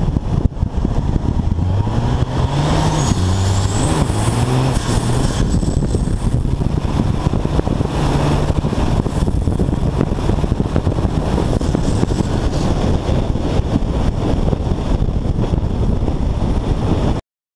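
Semi truck's diesel engine revving hard through a drift, heard from a camera on the truck's side with heavy wind buffeting the microphone. The engine pitch climbs a couple of seconds in and again about eight seconds in. The sound cuts off suddenly near the end.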